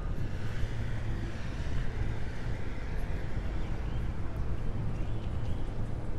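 Street traffic: passing motor vehicles' engines and tyres making a steady low rumble.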